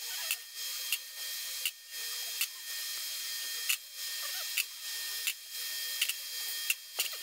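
Light metal clicks, roughly one or two a second, as engine valves are drawn out of an aluminium cylinder head and set down, over a steady background hiss.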